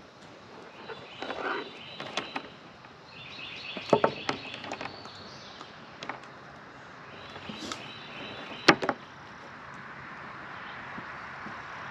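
Scattered knocks, clicks and rustling of gear being handled on a picnic table, with two sharper knocks about four and nine seconds in, over a steady outdoor hiss that grows louder near the end.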